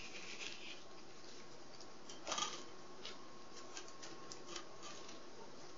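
Quiet handling noise from thin balsa sticks being picked up and moved about on a paper plan: a few light clicks and a short rustle a little over two seconds in.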